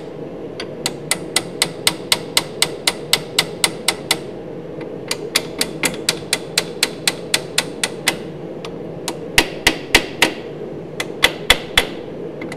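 Ball-peen hammer tapping a heated wheel bearing onto a classic VW Beetle swing-axle shaft, metal on metal. Even light taps come about three a second for most of the time, then after a short pause a few harder blows follow near the end, over a steady hum.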